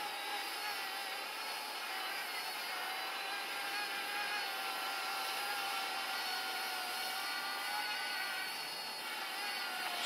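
Parrot Bebop 2 quadcopter drone in flight, its propellers giving a steady whine of several layered tones.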